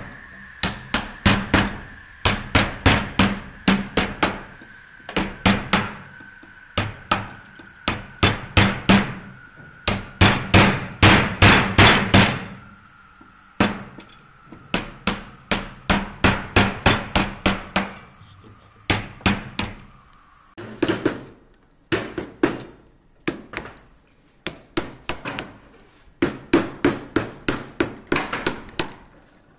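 Carving mallet tapping a wood-carving chisel through a hardwood chair leg, in runs of quick sharp taps, a few a second, with short pauses between runs as the cut is repositioned.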